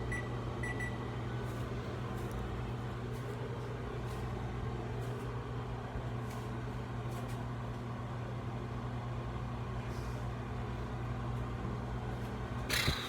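Microwave oven running with a steady hum while heating a potato, just after two short keypad beeps. A brief bump sounds near the end.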